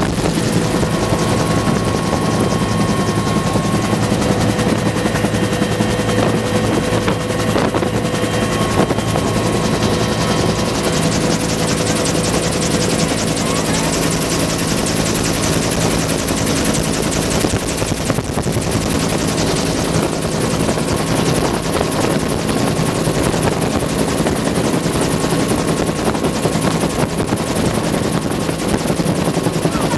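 Bell UH-1 "Huey" helicopter in flight, heard from inside the cabin at the open door: the two-blade main rotor and turboshaft engine running steadily and loudly.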